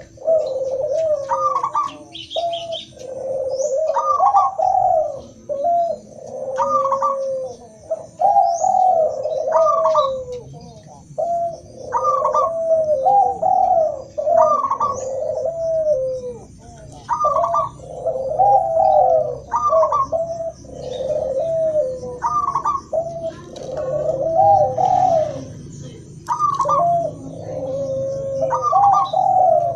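Doves cooing in repeated phrases, a new phrase every one to two seconds, from a mixed recording of zebra dove (perkutut), spotted dove (derkuku) and Barbary dove (puter) calls. Faint high chirps of small birds sound now and then.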